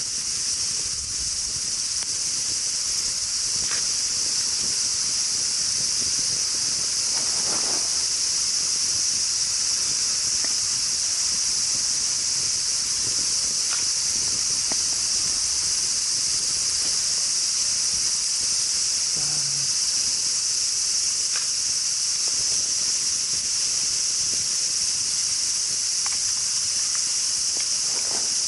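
Steady, high-pitched chorus of insects, unbroken and even throughout, with a few faint clicks.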